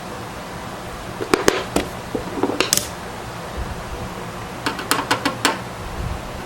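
Sharp clicks and clatter of computer parts being handled inside a desktop case, in two quick clusters about a second in and just before five seconds, over a steady background hiss.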